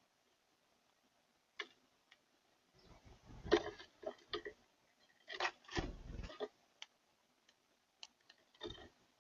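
Irregular clicks and taps, with a few clusters of dull knocks and thumps between them.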